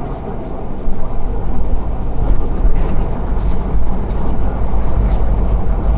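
Semi truck's engine running, heard from inside the cab as a steady low rumble.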